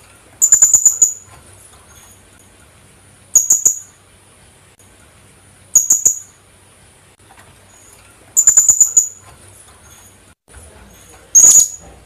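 Philippine hanging parrot (colasisi) calling: five short bursts of rapid, very high-pitched notes, each lasting under a second, spaced two to three seconds apart.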